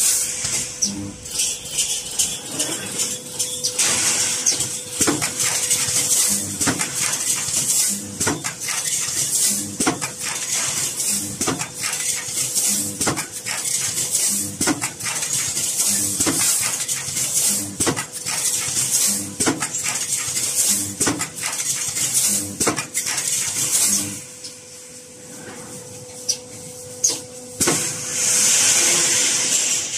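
Heavy-duty wire mesh resistance welding machine running its cycle: a metallic clank about every second and a half as the electrodes close on the wires and the mesh is pulled forward, over a steady electrical hum. It quiets briefly, then a loud hiss of air comes near the end.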